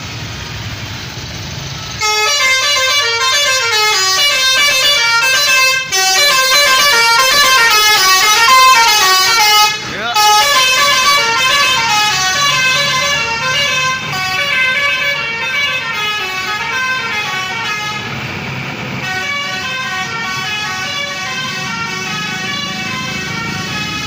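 Basuri V3 multi-tone "telolet" horn on a passing tour coach, playing a fast, stepping melody of several pitched tones that starts about two seconds in, over a low engine rumble. The melody is loudest through the first ten seconds and carries on a little softer after that.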